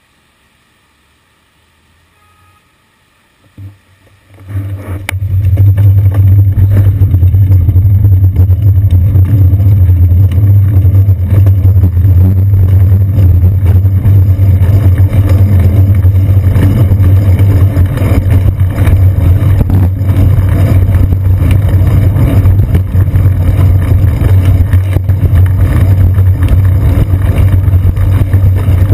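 Loud, steady low rumble of road vibration and tyre noise on wet pavement, picked up through a GoPro camera mounted on a riding bicycle's seat post. It starts about five seconds in, after a quiet stretch while the bike is stopped.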